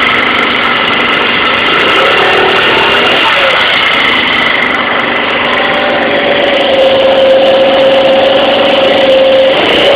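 2012 Tao Tao ATM-50A scooter running with a steady high-pitched squeal over the engine, joined about six seconds in by a lower steady whine that drops away near the end. The owner first suspected the belt housing but now believes the squeal comes from the rear tire and brake area.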